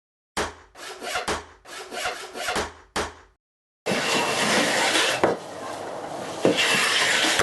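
A tool working a board of pallet wood: a run of short, uneven strokes, then after a brief cut, a steady rasping scrape with a few sharper knocks.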